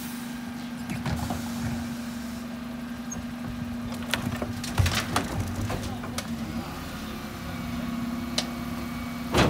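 Refuse truck's Terberg OmniDEL bin lift raising and tipping two wheelie bins, over the steady hum of the running truck. Creaks and a scatter of sharp knocks as the bins bump and shake, with a louder knock near the end.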